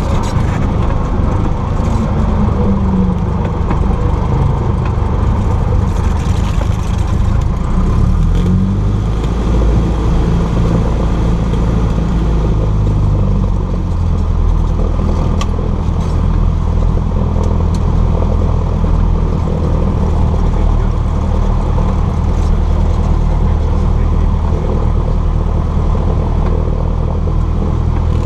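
Cessna 172's piston engine heard from inside the cabin. Its pitch falls in steps over the first several seconds as the revs come down, then it runs steadily at a low, even speed.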